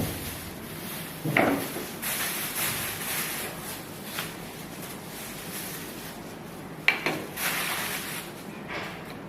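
Parts of a mop bucket set being unpacked and handled: rustling with a few knocks, the loudest about a second and a half in and again near seven seconds.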